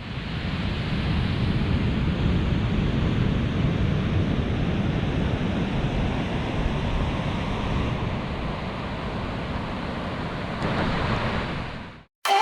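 Steady rush of ocean surf and wind on a mouth-mounted GoPro's microphone.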